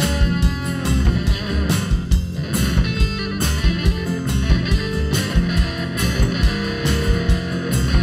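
Live band playing an instrumental passage with no singing: Telecaster-style electric guitar, acoustic guitar, upright bass and drums keeping a steady beat.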